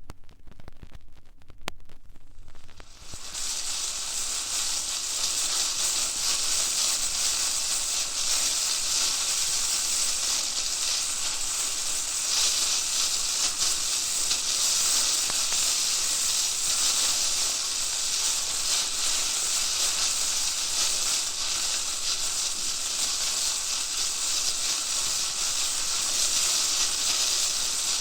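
Steady, loud hissing sizzle that swells in about three seconds in, holds level, and cuts away near the end.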